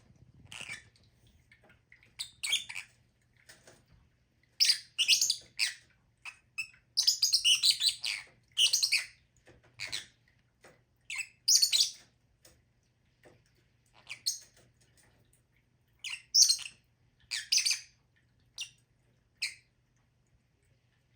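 Pet lovebirds calling: short, high-pitched chirps in irregular runs, thickest through the middle, with pauses between.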